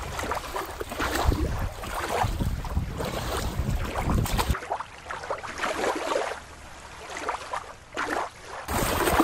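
Wind buffeting the microphone over water lapping in rocky shallows. About halfway through it cuts abruptly to a quieter, steady background for a few seconds, then the wind and water return near the end.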